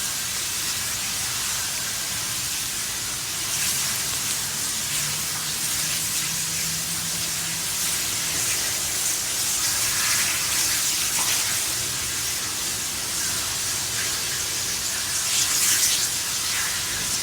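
Burning fifth wheel camper: a steady hiss with scattered crackles, swelling a little about four seconds in and again near the end.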